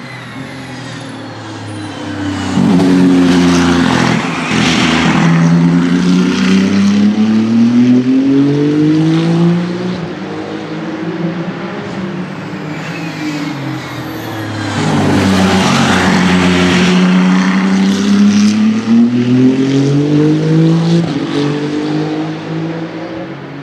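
Ferrari track cars passing one after another on a circuit, two loud passes each with the engine pitch dipping and then climbing again as the car slows and accelerates.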